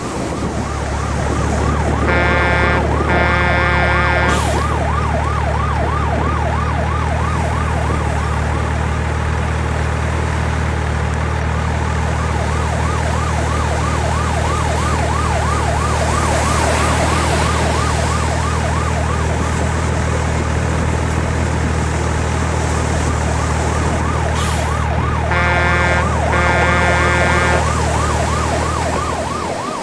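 Emergency-vehicle siren yelping in a fast up-and-down wail over a steady low engine drone, with two horn blasts near the start and two more near the end.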